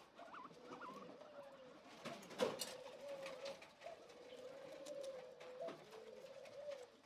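A low, slightly wavering animal call held for several seconds, with scattered light rustling clicks and one sharp click about two and a half seconds in.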